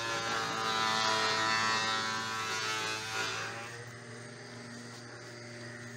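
An engine running steadily, loudest in the first half and fading away about three and a half seconds in, over a constant low hum.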